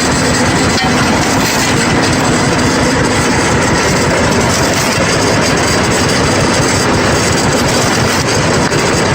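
Heavy machinery running steadily: a loud, continuous mechanical din with no pauses.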